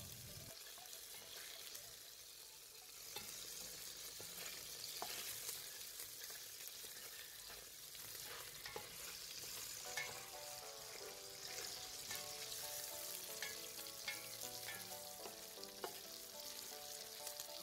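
Lamb and garlic cloves frying in rendered lamb tail fat in a non-stick pot, browning with no oil added: a faint, steady sizzle. Short clicks come from a silicone spatula stirring and scraping the pan.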